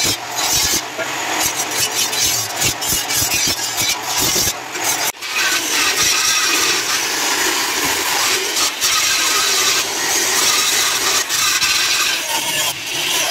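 Angle grinder with a thin abrasive cut-off disc running and cutting through the steel body of an old segmented diamond saw blade. The sound breaks off briefly about five seconds in, then runs on as one continuous grinding noise.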